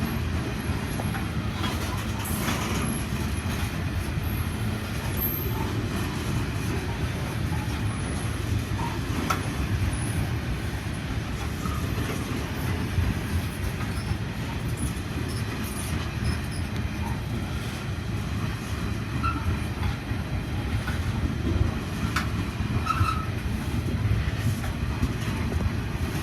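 Freight train wagons rolling steadily past with a continuous rumble and clatter of wheels on the rails, and faint, brief wheel squeals now and then.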